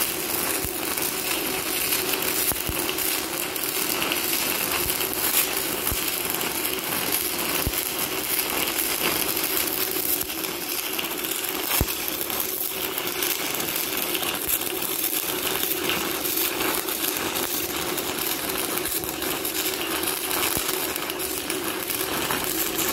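Stick-welding arc of a 1/8-inch E6010 electrode laying a vertical-up root pass: a steady crackling sizzle with frequent sharp pops.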